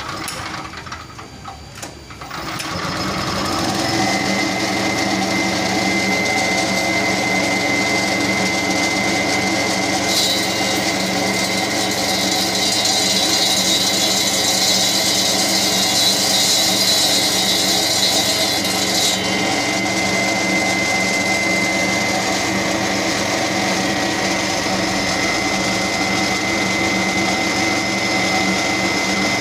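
Wema WM270 single-cylinder petrol engine on a concrete/asphalt cutter speeding up from idle about two to four seconds in, then running steadily at speed and turning the diamond blade, with a thin high whine. A steady hiss joins for several seconds in the middle.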